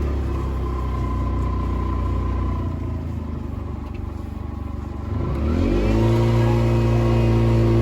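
Vehicle engine running steadily, easing off a little about three seconds in, then revving up about five seconds in and holding at higher speed.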